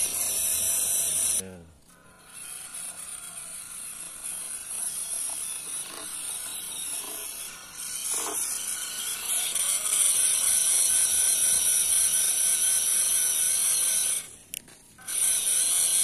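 Small electric motor and gearbox of a toy RC crawler pickup truck whirring as it crawls under load, quieter for a few seconds then louder. It cuts out briefly twice, about a second and a half in and near the end, as the throttle is let off.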